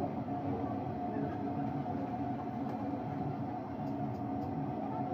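Litti deep-frying in a kadhai of hot oil: a steady sizzle and bubble over a continuous low roar, with a few faint clicks about four seconds in.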